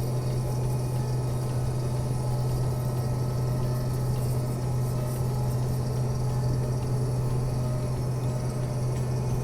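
Case 2388 combine's diesel engine and machinery heard from inside the closed cab: a steady low drone that holds an even level throughout.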